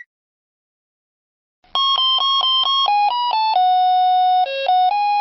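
Vehicle reversing melody: an electronic chime playing a simple tune in short beeping notes. It starts about one and a half seconds in, after a silence.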